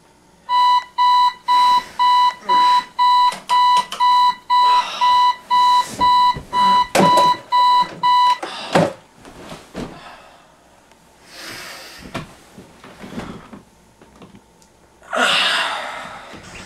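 Digital alarm clock beeping, a steady high beep repeating about twice a second for about eight seconds, then stopping. Rustling and a few knocks follow, with a louder rush of noise near the end.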